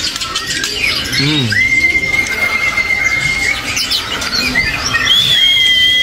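Songbirds in cages chirping and calling over one another, with long, steady whistled notes held for about two seconds at a time, the second time with a higher whistle over a lower one.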